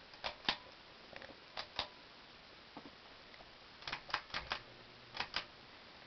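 Sharp clicks, mostly in quick pairs about a fifth of a second apart, with a cluster of four in the middle, over the faint steady run of a 52-inch Hunter Westminster ceiling fan.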